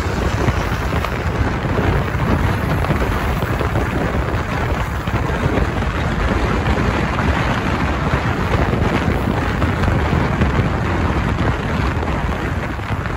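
Amtrak Auto Train's bi-level passenger cars and auto-carrier cars rolling past close by, a steady, even rumble of wheels on rail.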